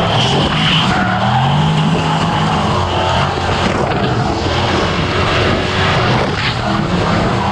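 Drift cars sliding in tandem: the engine under the camera revs up and down under hard throttle while the tyres squeal and skid. A high tyre squeal is loudest near the start.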